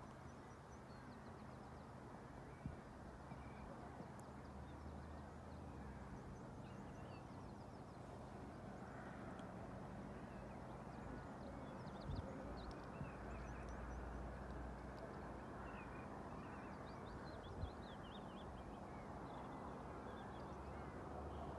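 Gusts of wind buffeting the phone microphone over a steady outdoor hush, with faint scattered high chirps of distant songbirds and a few soft knocks from handling.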